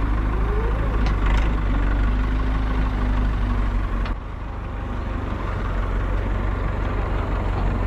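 Farm tractor's diesel engine running close by as it moves a trailer loaded with hay bales: a steady low hum, with a short rising whine in the first second.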